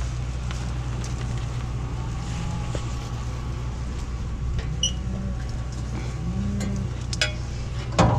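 Flatbed cake-feeder truck's engine idling, a steady low hum, with a sharp clack about eight seconds in.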